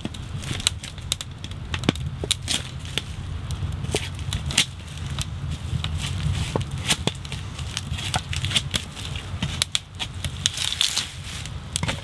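Irregular crackles and pops from a wood fire in a small tent wood stove, mixed with the crinkling and rustling of a pot being unwrapped from its bag and tape, over a steady low rumble of wind.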